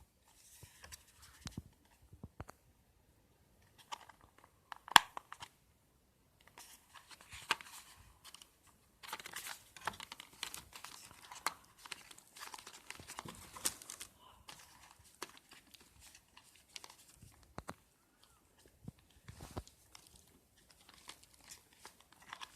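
Headset packaging being handled and unwrapped: irregular crinkling and rustling with scattered clicks. The loudest is a sharp click about five seconds in, and the handling is busiest in the middle.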